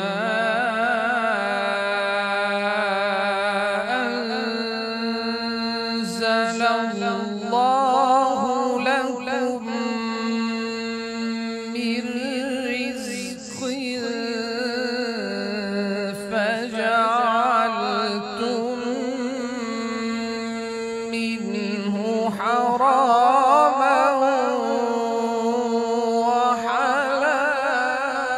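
A man reciting the Quran in the melodic tajweed style into a microphone. He draws out long, ornamented phrases with a wavering pitch, with only a short break partway through.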